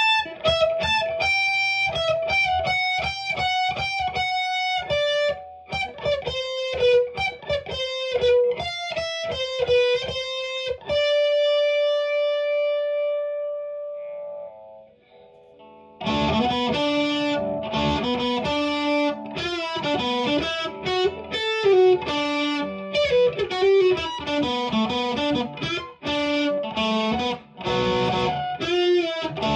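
Electric guitar on its combined pickup setting, a Lindy Fralin High Output Telecaster bridge pickup together with a Fender CuNiFe Wide Range humbucker, played through an amp. Single-note lines, then a note held and left to ring out, a brief pause, and from about halfway a busier, brighter passage.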